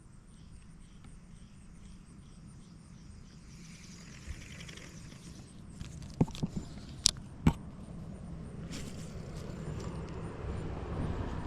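A road vehicle approaching: a low rumble that grows louder toward the end. Four sharp clicks come a little past the middle of it.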